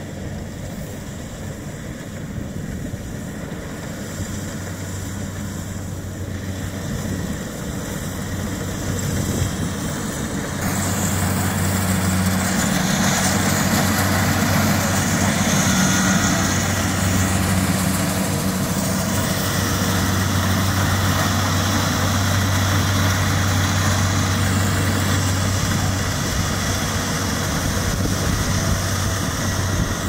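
Kubota rice combine harvester running steadily as it cuts rice, its engine a constant hum. About a third of the way in it becomes clearly louder as the machine comes close.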